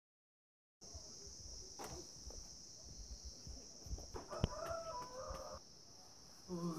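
Footsteps on rough stone steps with phone-handling rumble, under a steady high-pitched hiss. About four seconds in comes a sharp click, then a short pitched bird call.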